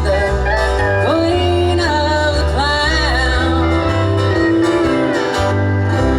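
Country band playing live: guitar over a steady bass line, with a sliding melody line above.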